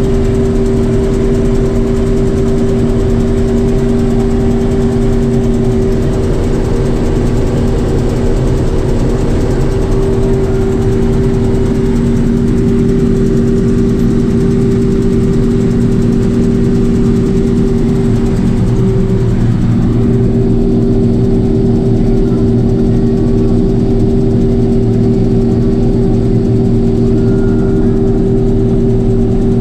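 Combine harvester running steadily while cutting wheat: a constant engine drone with a strong, even machinery hum.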